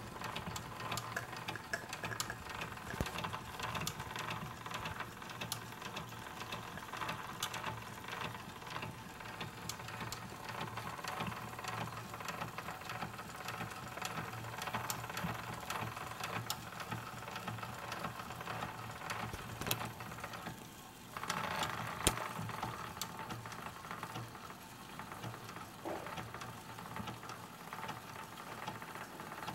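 Wilesco live-steam model traction engine running slowly, its stamped metal reduction gears clattering in a steady rattle of fast small ticks that covers the sound of the steam. About two-thirds of the way through comes a brief louder rush of noise, ending in a sharp click.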